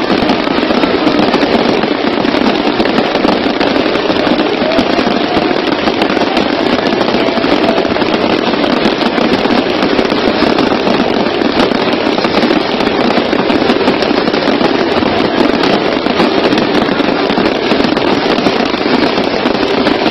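Fireworks display at close range: a loud, dense, unbroken barrage of bursting shells and crackling with no pauses.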